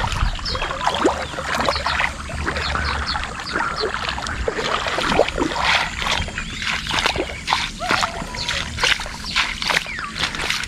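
Irregular splashing and sloshing in shallow muddy water as a hooked snakehead is dragged in on the line and the angler wades ashore.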